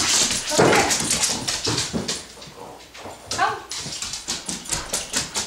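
Standard poodle's claws clicking and tapping irregularly on a laminate floor as the dog moves about. About three and a half seconds in, the dog gives one short whine that falls in pitch.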